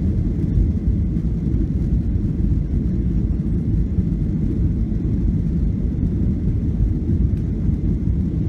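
Cabin noise inside a Boeing 737-700 taxiing: a steady low rumble from its CFM56-7B engines at idle and the aircraft rolling along the taxiway.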